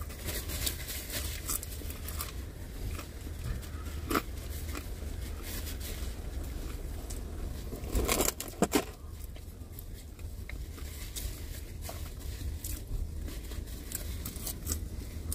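Eating in a vehicle cab: chewing and crunching of potato wedges, plastic fork clicks and a paper wrapper being handled, over a steady low hum. A brief louder spell of rustling and clicks comes about eight seconds in.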